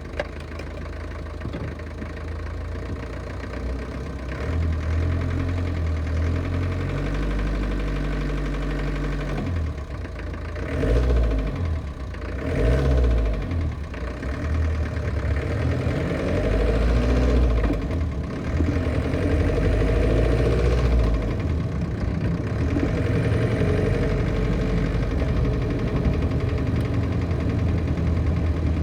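1968 Land Rover Series IIA engine running with a metallic knock, revved briefly a couple of times around the middle; the cause of the knock is unknown to the owner.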